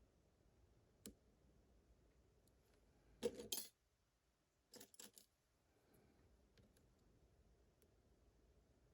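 Faint metallic clicks and scrapes of lock picks working the pins of a Vachette VIP pin-tumbler lock: one click about a second in, a short rattling cluster about three seconds in, and a few more clicks about a second after that.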